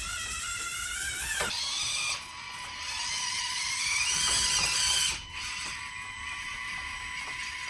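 Micro RC crawler's small electric motor and gear train whirring as it drives, the whine rising and then falling in pitch about four seconds in.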